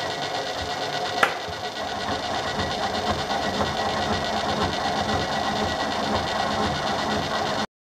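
Metal lathe running and taking a cut, a steady mechanical whirr with a single sharp click about a second in. It cuts off suddenly near the end.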